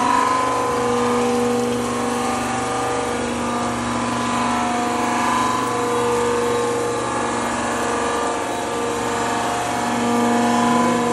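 Vertical-spindle surface grinder skimming a cylinder head face: the grinding wheel runs steadily across the metal with a continuous grinding hiss over the machine's hum, a few steady tones that swell and fade as the cut goes on.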